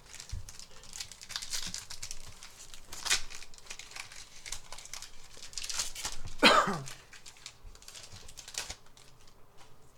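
Foil booster-pack wrapper crinkling and tearing as a trading-card pack is opened, with irregular crackling throughout. A brief, loud sound falling in pitch stands out about six and a half seconds in.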